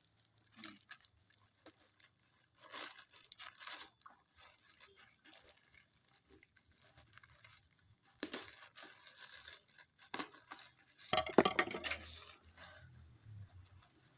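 A parcel's packaging being torn and crumpled open by hand: irregular bursts of tearing and rustling with short pauses, the loudest a little before the end.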